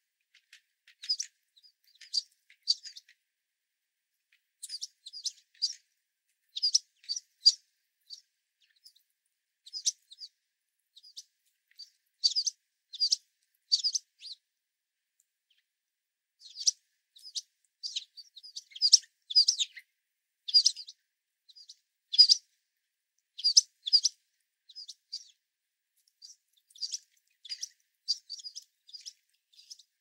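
Sparrows (American tree sparrows and white-throated sparrows) giving many short, high chip calls, often in quick pairs or clusters, with a brief lull about halfway through.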